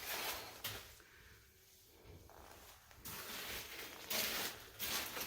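A hiker's footsteps scuffing along the trail with gear rustling, in a few irregular bursts.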